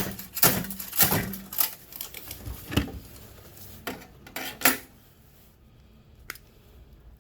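Metal clinks and knocks from a screwdriver and loose metal parts as a microwave's small electric motor is unscrewed from its sheet-metal housing: a run of irregular knocks for the first five seconds, then quieter with one last click near the end.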